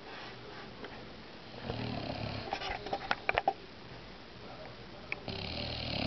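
A bulldog snoring in her sleep: two long, rasping snores a few seconds apart, with a few short sharp clicks in between.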